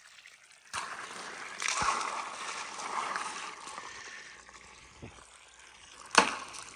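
Water splashing and trickling along a marble run's water slide, with a few light knocks. A sharp, loud clack comes near the end.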